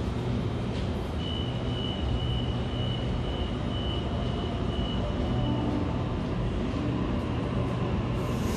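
Electric passenger train standing at an underground station platform: a steady low hum, with a high steady tone for about four seconds in the middle. Near the end a hiss swells up.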